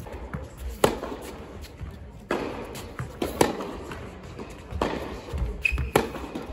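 Tennis rally on an indoor hard court: a ball struck by rackets and bouncing, sharp pops about once a second, with a brief high squeak about five and a half seconds in.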